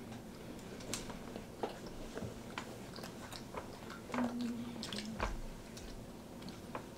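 Several people chewing and biting into pieces of white chocolate Twix bar, faint scattered crunches and wet mouth sounds.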